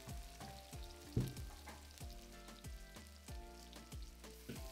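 Wooden spatula stirring and scraping onion-tomato masala around a heavy pot, with a faint sizzle of the frying oil underneath, a stroke every half second or so.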